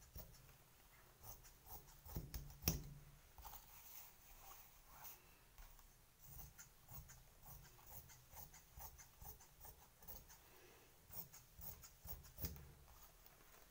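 Scissors cutting blouse fabric in quiet, uneven snips, with the cloth rustling as it is moved; a sharper knock about two and a half seconds in is the loudest sound.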